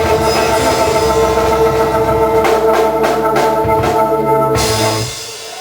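Band music with a held organ chord over drums, a flurry of drum and cymbal hits in the middle, then the music stops sharply near the end as the last chord dies away.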